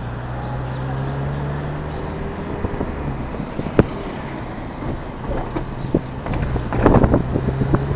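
Car running at low speed, heard from inside the cabin: a steady low engine hum with road noise, and a single sharp click about four seconds in.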